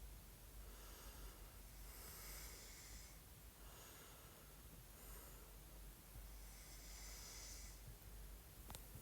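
A sleeping boy snoring softly, with faint airy breaths, three of them a few seconds apart.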